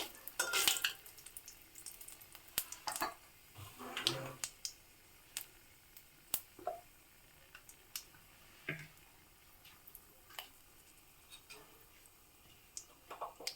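Whole spices (cumin seeds, cinnamon, cloves, cracked cardamom) sizzling faintly in hot mustard oil, with scattered sharp pops and clicks. A spoon scrapes the pan a few times as the tempering is stirred.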